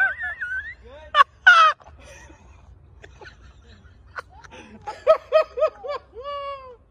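Onlookers' voices: a wavering whoop, then two sharp rising shouts about a second in, a burst of about five quick laughs around five seconds, and one long falling "ohh" near the end.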